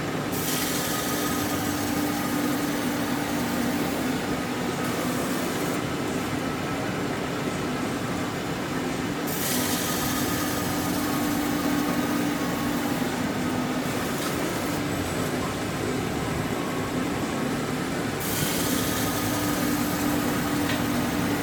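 Automatic binding-tape cutting machine running with a steady hum, overlaid by a hiss that runs for the first nine seconds or so, drops away, and comes back for the last few seconds.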